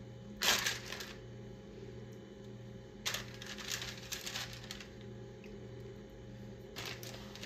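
Raw chicken breasts going into a pot of water and chicken bouillon: short bursts of splashing and light clicks about half a second in, again from about three to four and a half seconds, and near the end, over a steady low hum.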